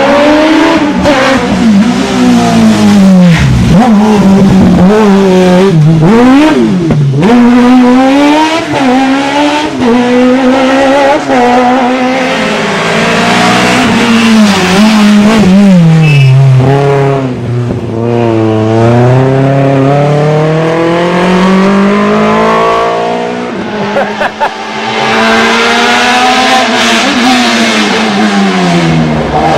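Racing car engine at high revs, its pitch climbing through the gears and dropping sharply on each shift and lift, over and over. There is a quick run of drops and blips between about 3 and 7 seconds in.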